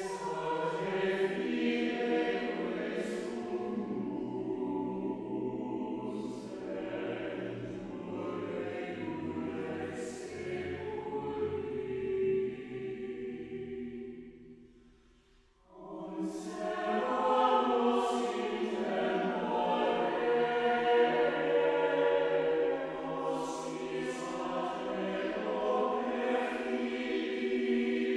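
Mixed choir singing a Latin hymn text in a chant-like style, with low men's voices joining a few seconds in. The phrase dies away about halfway through, and after a brief near-silent pause the full choir enters again.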